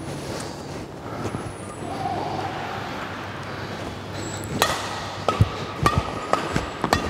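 Badminton rackets hitting a shuttlecock in a fast drive rally: sharp, ringing pings about two a second, starting about four and a half seconds in. Before that there is only a steady low hum.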